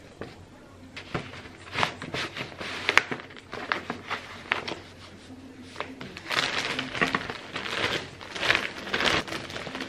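Paper envelopes and wrapping paper rustling and crinkling as they are handled and folded for packing: scattered short crackles in the first half, then a denser stretch of rustling in the second half.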